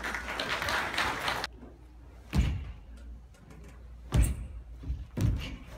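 Three heavy thuds on a wooden stage floor, about two and a half, four and five seconds in, from barefoot karateka stepping and stamping as they spar. They follow a short rush of noise in the first second and a half.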